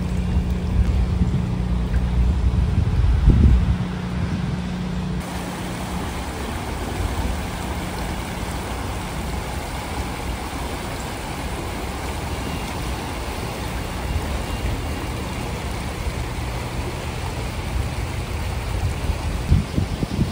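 Floodwater of a swollen creek rushing steadily. A low steady hum sits under it for the first five seconds or so and cuts off suddenly. Wind bumps on the microphone come near the end.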